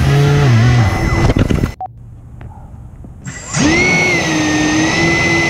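Electric motors and fans of a 3D-printed RC hovercraft whining, shifting in pitch with the throttle. The sound cuts out suddenly a little under two seconds in, then spools back up with a rising whine about a second and a half later and settles into a steady high whine.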